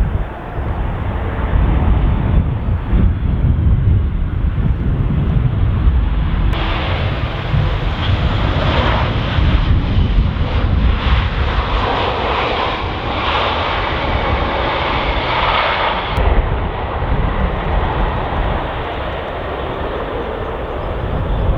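Boeing 737 MAX 9 jet airliner on its landing approach, its engines a steady rumble that grows fuller and louder for about ten seconds in the middle as it passes, then eases off again.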